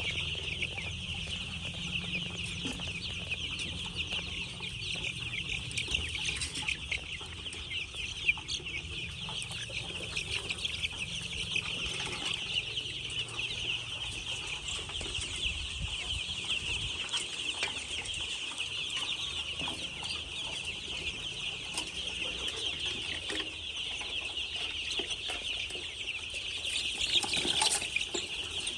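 A flock of laying hens clucking and chattering all at once, a dense continuous din over a low steady hum, briefly louder near the end.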